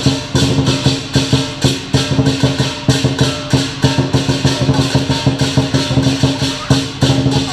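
Lion dance percussion: a big drum beaten in a fast, driving rhythm of about three main beats a second, with gongs and clashing cymbals ringing over it.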